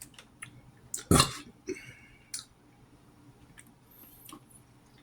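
A short, loud burp about a second in, among faint clicks and small mouth noises.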